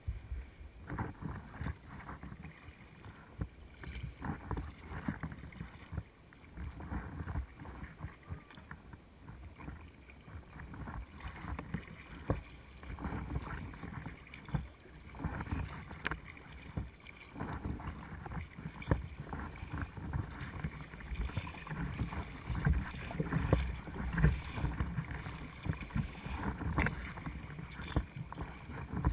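Water sloshing and slapping against the hull of a Perception Essence 17 sea kayak as it is paddled through choppy sea, in irregular splashes that grow louder in the second half.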